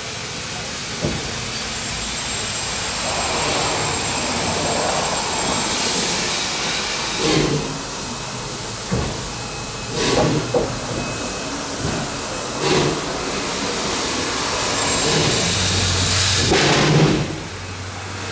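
Steam locomotive Jeddo Coal 85, a 1927 Vulcan 0-4-0T saddle tank, hissing steadily, with about five loud exhaust chuffs two to three seconds apart, the loudest near the end. A low steady hum comes in near the end.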